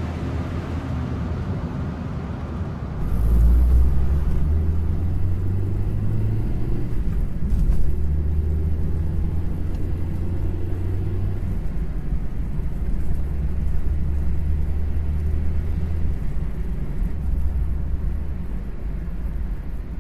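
Low, steady rumble of a car on the move, with road and engine noise; it gets louder about three seconds in.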